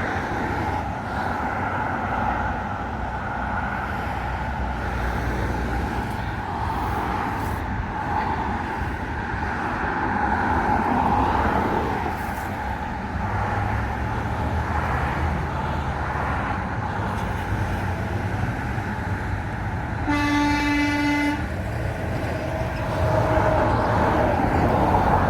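Steady running noise of a moving vehicle. Near the end a single-pitched horn sounds once for about a second and a half.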